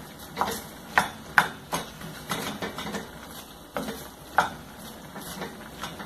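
Wooden spoon stirring ground beef and vegetables in a stainless steel pan, knocking and scraping against the pan's side and bottom in irregular strokes about one or two a second.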